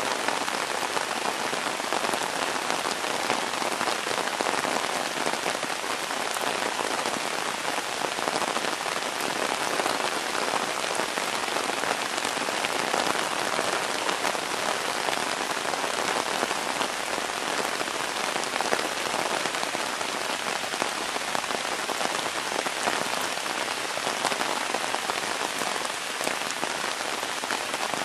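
Steady rain falling, an even hiss with no rhythm.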